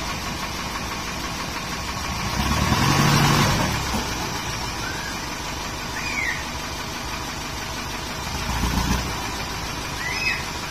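Dump truck engine running steadily while the raised bed tips out a load of soil, swelling louder twice, about two to four seconds in and again about eight to nine seconds in. A few short high chirps sound over it near the middle and end.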